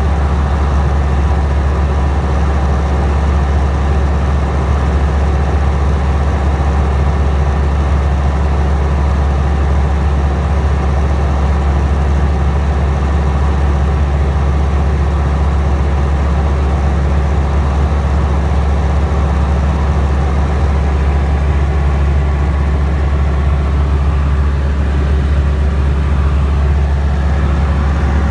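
Tecnam Sierra light aircraft's Rotax piston engine running steadily in flight, a constant loud drone with a deep hum and no change in pitch.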